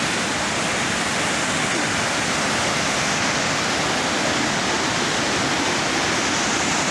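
Waterfall crashing down: a loud, steady rush of falling water.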